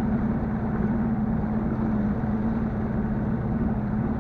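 Bass boat's outboard motor running steadily under way: a steady hum with a rushing noise over it.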